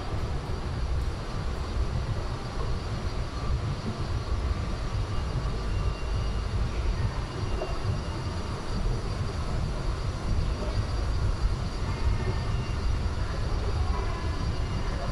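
Steady low rumble of an underground subway station, with faint high-pitched tones coming and going.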